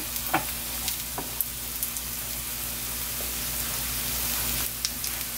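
Batter-coated eggplant slices sizzling in oil in a frying pan, a steady hiss with scattered small pops and crackles. The slices are frying on their first side until golden before being turned.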